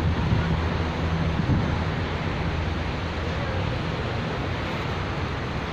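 Steady outdoor background noise, heaviest in a low rumble, with no distinct events.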